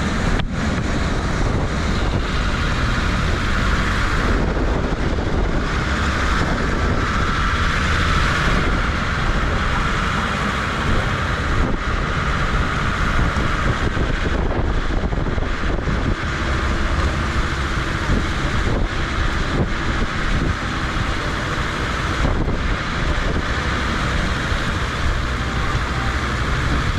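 Wind buffeting the microphone over the steady running noise of a safari jeep driving along a dirt track: engine and tyre noise under a heavy wind rumble.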